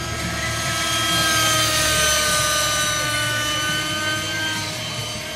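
Align T-Rex 600 radio-controlled helicopter in flight. The rotor and drivetrain give a steady pitched sound that sags slightly in the middle and comes back up, and it is loudest about two seconds in.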